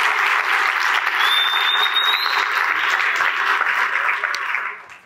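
Church congregation applauding, a dense even clapping that dies away near the end.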